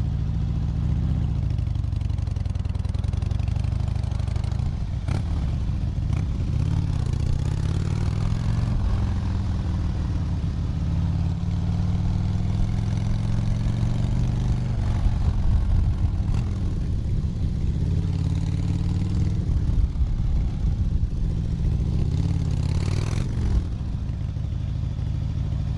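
Harley-Davidson motorcycle's V-twin engine running, its pitch rising and falling with the throttle. There is a long slow rise in pitch from about ten seconds in that drops back at around fifteen seconds, and a short rev near the end.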